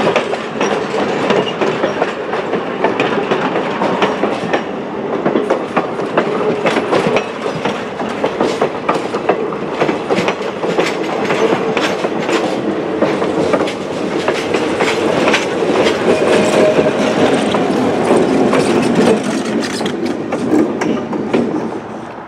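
Passenger cars of a train rolling past close by: a steady rumble of wheels on rail with many sharp clicks over the joints. The sound drops away near the end.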